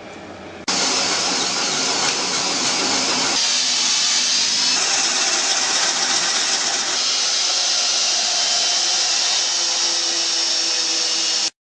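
Keyang DD 1441L cordless drill driver running steadily for about ten seconds, switched on abruptly about a second in and stopping suddenly near the end, its sound changing a few seconds in.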